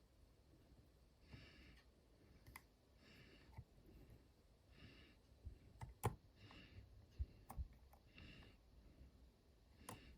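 Faint clicks and soft scraping from a disc detainer pick turning the rotating discs inside an Abloy Classic cam lock, as the picker feels for a binding disc. The sharpest click comes about six seconds in.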